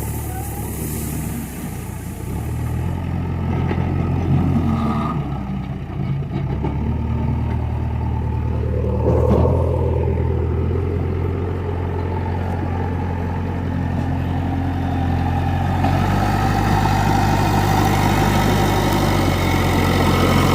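JCB 3DX backhoe loader's diesel engine running under work, its steady low note shifting up and down several times as the load changes.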